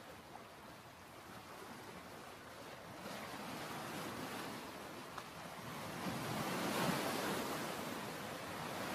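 Sea waves washing onto a sandy beach, a steady surf hiss that swells as a wave comes in about six to seven seconds in and again near the end.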